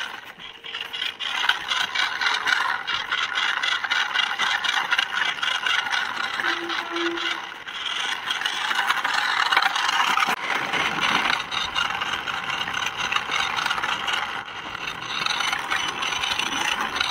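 Toy RC car's small electric motor and plastic gearbox running as it drives over rough gritty dirt, with a steady rattling and scraping of the wheels on the ground.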